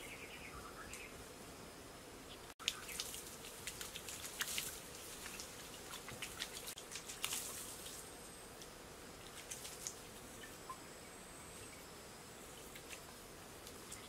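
Water poured from a clay pot spattering and dripping onto a grass turf roof, a run of crackly splashes from about three seconds in to about eight seconds, with a few more later. A faint steady insect buzz runs underneath.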